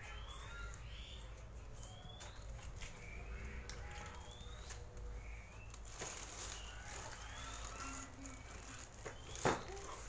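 Birds chirping in short rising calls every half second or so, over a faint low hum. Rustling as a long boxed parcel is handled on a tiled floor, then one sharp knock near the end as the box is set down.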